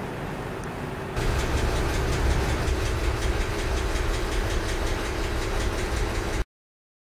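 Industrial sewing machine running, a rapid even ticking over a low hum, starting about a second in and cutting off abruptly near the end.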